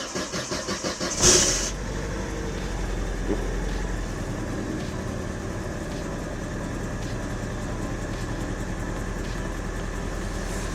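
Vauxhall Corsa engine cold-started: the starter cranks for about a second, the engine catches with a brief rev, then settles into a steady idle with a little bit of misfire, which the owner thinks may just be from it being cold after a month standing.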